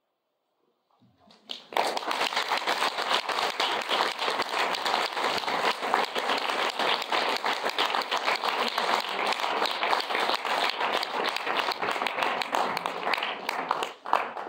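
Audience applauding, after about a second and a half of silence. The applause stays steady, then thins out near the end.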